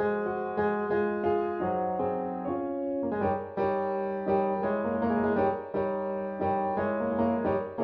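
Background piano music, a steady run of notes that grows fuller about three seconds in.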